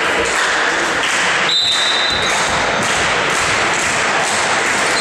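A referee's whistle blows once for the serve, a single steady note held for about a second, starting about a second and a half in. It sounds over the constant din of a sports hall, with a volleyball thudding as it is bounced on the wooden floor.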